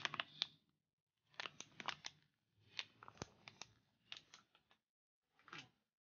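Faint clicking and rustling handling noise in four or five short clusters, as of objects and paper being moved about on a work surface.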